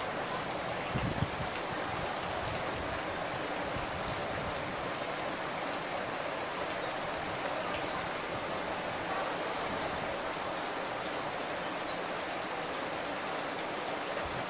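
Steady rush of running water, with a brief low thump about a second in.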